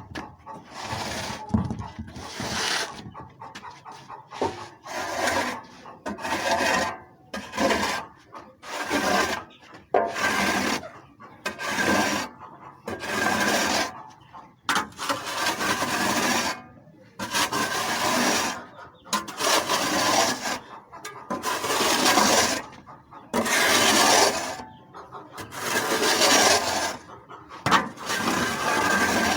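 Repeated rough scraping strokes, about one a second, like a surface being scraped or scrubbed clean by hand.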